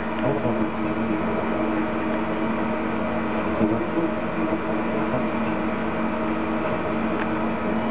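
FM radio tuned to 103.95 MHz receiving a jamming signal: a steady dense noise with several held low tones running through it instead of a station.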